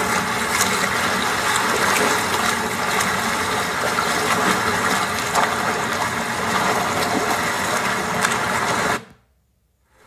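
Beach ambience recording: a steady wash of noise with small scattered crackles. It fades out quickly about nine seconds in, leaving a second of near silence.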